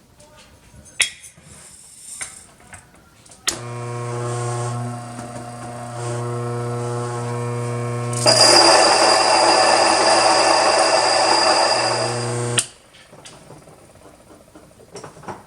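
Mockmill 100 stone grain mill switched on with a click, its motor running with a steady hum. About five seconds later red wheat berries go in and are ground, adding a louder rushing noise over the hum. About four seconds after that the mill is switched off and stops suddenly. A few small handling clicks come before it starts.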